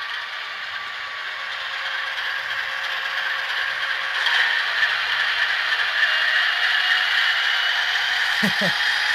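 Sound decoder of a Piko HO-scale BR130 diesel locomotive playing its engine sound through the model's small speaker. It is a steady whining, rattling running noise that grows louder over the first several seconds, like an airplane starting up.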